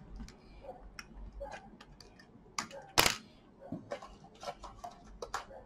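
Light clicks and ticks of a plastic laptop case being worked open at its clips, with a small metal blade and gloved hands on the casing, and one sharp click about three seconds in.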